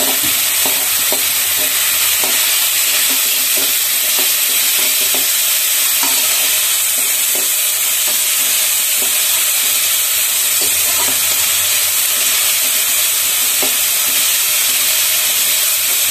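Vegetables sizzling in hot oil in a metal kadai as they are stir-fried, with a steady hiss throughout. A flat spatula scrapes and knocks against the pan every half second to a second.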